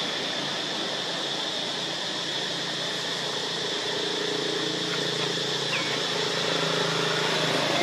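Steady outdoor hiss with an engine running at idle, its low steady hum becoming clearer about halfway through. One short, faint chirp near the end.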